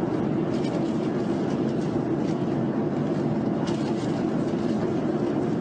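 Steady jet engine and airflow roar as heard inside a fighter cockpit, even and unbroken, heavy in the low-mid range.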